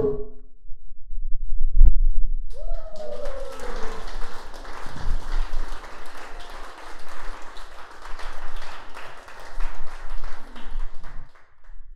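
The last notes of a giant wooden xylophone stop right at the start, a single low thump follows, then the audience applauds, with a shout near the start of the applause, for about nine seconds before it stops just before the end.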